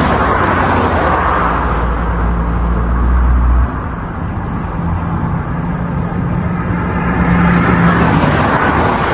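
A vehicle running under a loud, steady rushing noise, with a low, even hum. The deepest part of the hum cuts off suddenly about three and a half seconds in, while a higher hum carries on.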